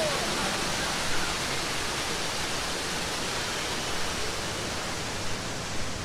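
Steady rushing hiss of a waterfall pouring down close by, easing slightly near the end.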